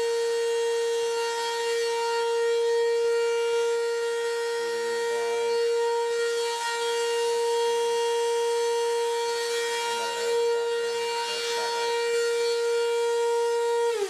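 Old Hoover Floormate wet floor cleaner's motor running with a loud, steady, high-pitched whine that holds one pitch. It has grown louder over the years, which the owner puts down to the motor getting old.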